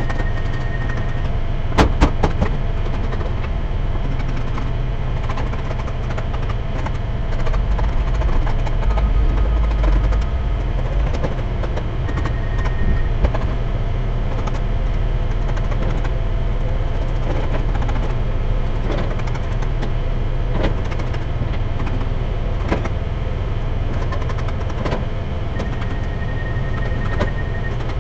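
Diesel engine of a Komatsu wheel loader running steadily while handling a load, swelling louder for a few seconds about eight seconds in. A few sharp knocks sound about two seconds in.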